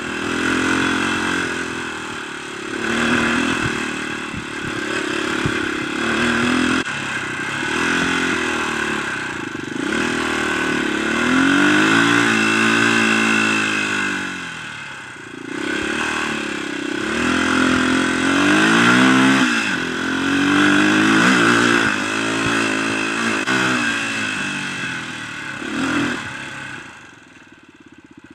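Dirt bike engine heard close up from the bike itself, its pitch rising and falling again and again as the rider opens and eases the throttle, with wind noise. Near the end it drops to a low idle as the bike slows to a stop.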